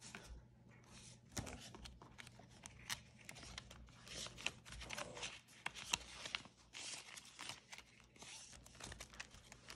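Paper banknotes and cash envelopes being handled: soft, irregular rustling and crinkling with light clicks as the bills are shuffled and moved between envelopes.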